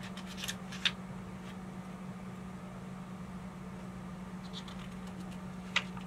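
Paper pages of a hardcover picture book being handled and turned: a few short crisp clicks and rustles, the sharpest near the end as a page flips over, over a steady low hum of room tone.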